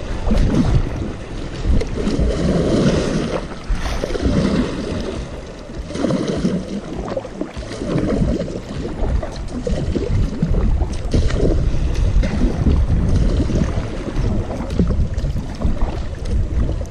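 Kayak paddle strokes splashing and water rushing close to a camera mounted at water level, surging every couple of seconds with each stroke, over a low rumble of wind on the microphone.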